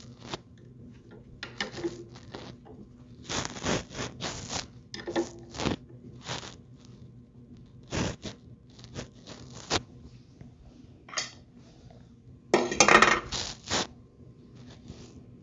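Hand tools clinking and scraping against the metal carburetor of a Briggs & Stratton mower engine as the float bowl is loosened to drain old fuel. There are scattered short clicks, with a louder quick run of clicks about three-quarters of the way through.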